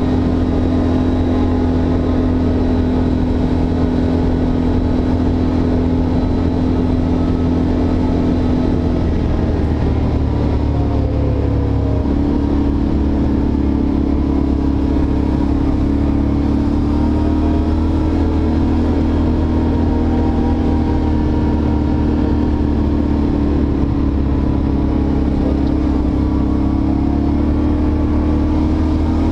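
ATV engine running steadily under way. Its note sags about ten seconds in and steps back up about two seconds later.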